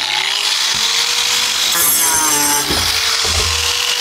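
Angle grinder with a cut-off disc running, its motor tone climbing as it spins up and then holding steady, as it cuts through the rest of a plastic drum's lid. A brief falling squeal comes about two seconds in.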